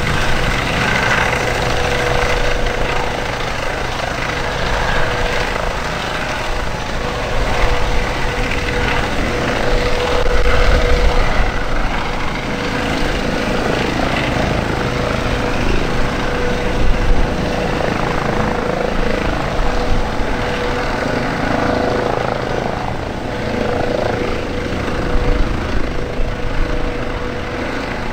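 Airbus Helicopters H135 (EC135 P2) hover-taxiing close by: steady turbine whine and main-rotor noise with one steady tone running through it, over an uneven low rumble.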